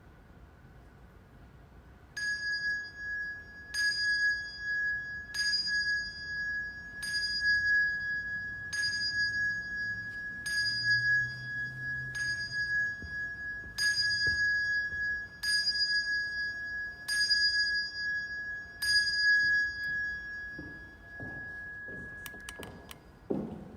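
A single high-pitched bell or chime struck about eleven times, evenly about every second and a half. One clear note rings on between strikes and fades out after the last one. It sounds as a call to open worship.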